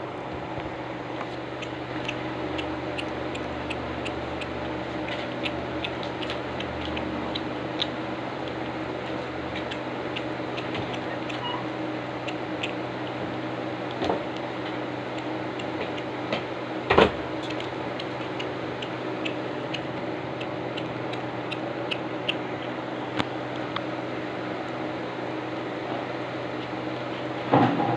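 A kitten eating, its chewing making many small clicks over a steady machine hum, with one sharper click about seventeen seconds in.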